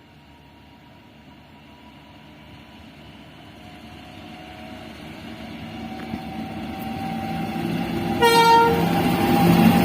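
A train approaching, growing steadily louder, with one short locomotive horn blast about eight seconds in.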